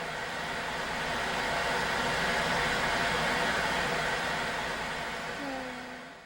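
A loud rush of noise that swells up, holds, and fades away again, with a brief slightly falling tone near the end.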